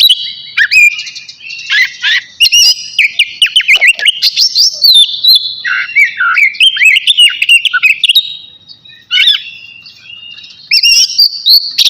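Oriental magpie-robin (kacer) singing a loud, continuous, varied song of quick whistled phrases, trills and chatters, the rich mixed repertoire that keepers call 'bongkar isian'. It goes quieter for a moment near the end, then starts up again.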